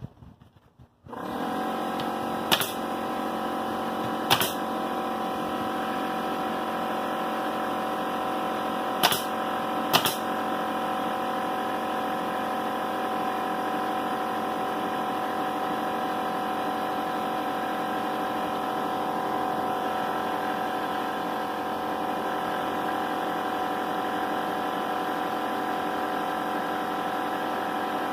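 Air compressor kicks on about a second in and then runs steadily. Four sharp pops of a pneumatic siding nail gun driving nails into fiber-cement planks come over it, two close together early on and two about a second apart near the middle.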